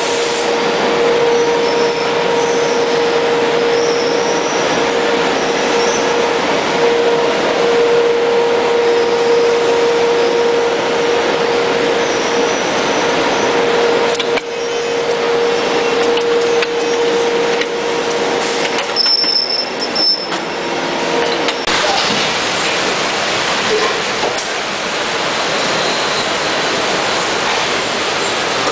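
Production-line machinery in a CRT television factory running: a loud, steady mechanical noise with a steady mid-pitched tone through it that fades out about two-thirds of the way in, and a few brief high whines.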